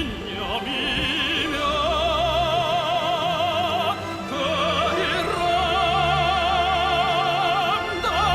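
Background music: a Korean art song sung by a classical tenor, holding long notes with a wide vibrato over an orchestral accompaniment.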